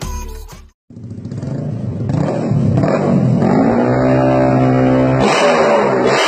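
Yamaha R15 V3's single-cylinder engine revving through a loud aftermarket racing exhaust, starting about a second in after a brief silence; the revs climb, then hold high for a while.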